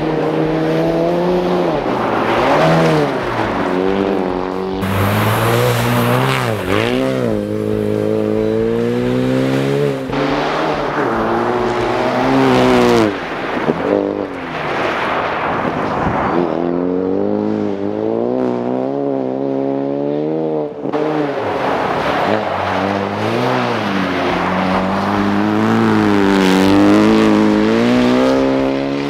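Ford Focus RS rally car on spiked tyres driven hard on snow and ice, its engine revving up and dropping back again and again as it slides through the turns.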